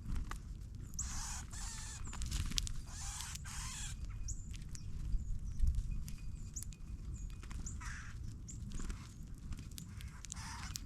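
Small birds at a ground feeder giving short, sharp, high chip calls, mixed with brief bursts of rustling and fluttering and light clicks, over a steady low rumble.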